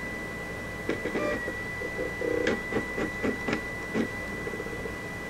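Polaroid USB Blu-ray drive running with a steady high-pitched whine, with a run of clicks and ticks from the drive mechanism from about a second in until about four seconds in.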